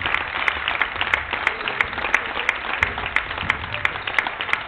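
Spectators at a basketball game clapping in a steady rhythm, about three claps a second, over a constant crowd hubbub in the gym.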